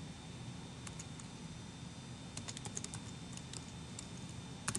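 Slow typing on a computer keyboard: a handful of faint key clicks with pauses between them, a few close together about halfway through.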